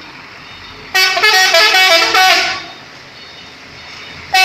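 A truck's telolet horn, a set of tuned multi-trumpet horns, plays a short stepping tune of several notes for about a second and a half, starting about a second in. It sounds again just before the end, over the steady sound of the vehicle running.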